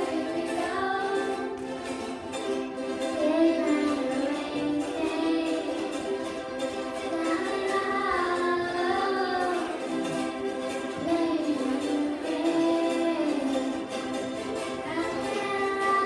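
A children's ukulele ensemble strumming chords while young girls sing a melody into microphones over the amplified sound.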